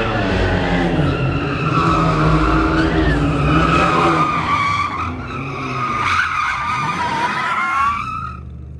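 Hyundai Genesis Coupe 2.0T drifting: its tyres squeal continuously in wavering pitches over its revving engine, until the sound drops away about eight seconds in.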